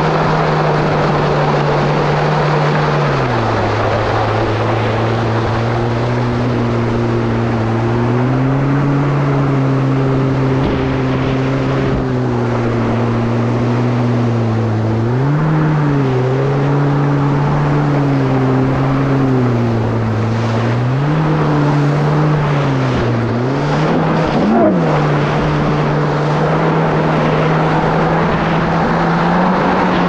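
Kawasaki SX-R 1500 stand-up jet ski's four-cylinder four-stroke engine running under way with a heavy rush of wind and water. Its pitch drops a few seconds in, then rises and falls several times with the throttle, with one quick rev and drop near the end.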